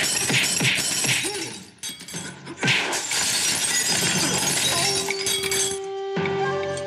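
Fight-scene crash sound effects: glass panes shattering and a wooden window frame breaking, then a second, longer crash of splintering wood and falling glass starting about two and a half seconds in. Music plays underneath, with a held note near the end.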